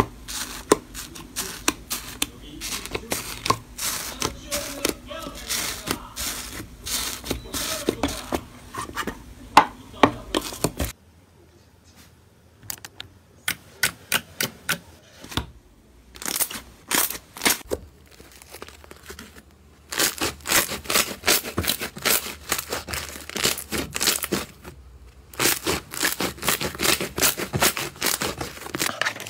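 Slime being pressed and squeezed by hand: dense runs of crackles, pops and crunches that stop and start between several short takes, with a near-quiet pause about a third of the way in.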